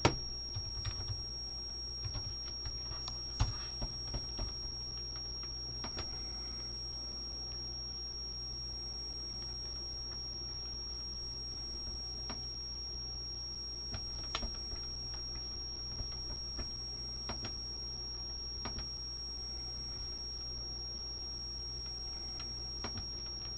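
Quiet room tone: a steady low electrical hum and a constant high-pitched whine, with a few faint scattered clicks.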